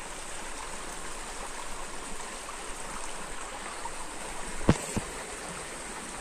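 Stream water babbling steadily over rocks, with two sharp knocks about a third of a second apart near the end.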